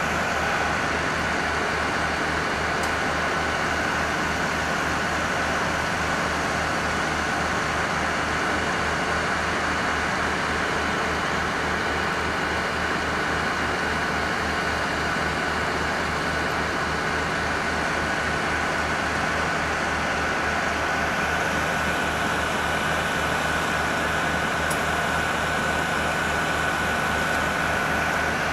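Fire apparatus engines running steadily: a low, even throb with a steady high-pitched whine over it.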